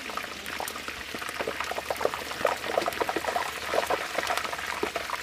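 Hot oil in a turkey-fryer stockpot bubbling and crackling around a turkey held down in it on the lifting hook: a dense, continuous crackle of many small pops over a steady hiss.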